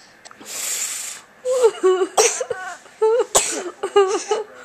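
A woman laughing hard: a breathy hiss, then several bursts of laughter with sharp gasps between them.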